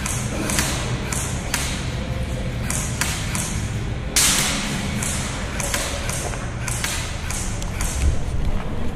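Scattered sharp cracks and taps of airsoft fire and BBs striking, irregularly spaced, with a louder crack about four seconds in and a low thump near the end.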